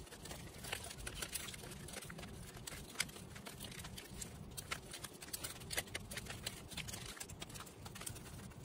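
Paper banknotes handled and sorted by hand: faint, quick paper rustles and light taps as bills are picked up and stacked.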